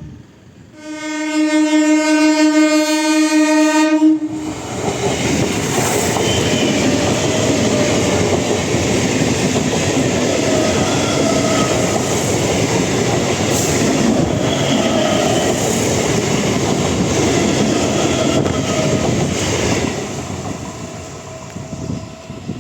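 An Indian Railways electric train sounds its horn in one long blast of about three seconds. It then runs past at speed, wheels clattering over the rails, and the noise fades near the end.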